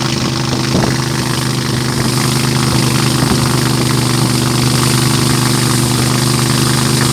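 Boat's engine running at a steady speed while under way, with an even rush of wind and water over it.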